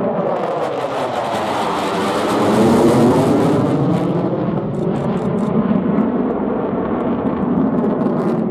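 JF-17 Thunder fighter's single RD-93 turbofan at full afterburner, a loud continuous jet rush. Its tone sweeps and swirls as the jet passes, loudest about three seconds in, with faint crackles a little later.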